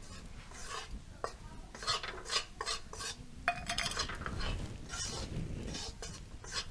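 Metal spatula scraping and stirring wheat flour round a stainless-steel kadai, in irregular strokes of metal on metal, as the flour is roasted in oil.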